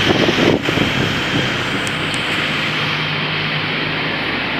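Steady city street traffic noise: a continuous hiss over a low hum.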